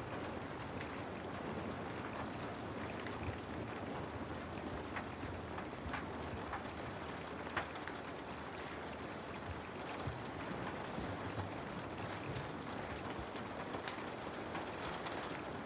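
Steady rain on a window: an even hiss with scattered sharp drop taps.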